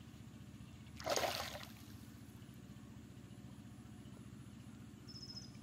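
A brief splash of river water about a second in, over a steady low hum, with a short high chirp near the end.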